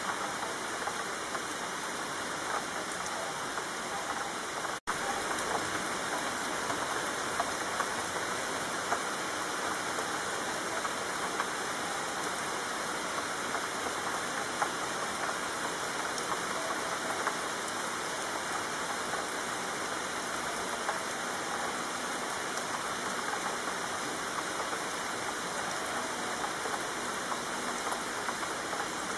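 Steady rain falling, an even hiss with scattered louder drops. The sound cuts out for an instant about five seconds in.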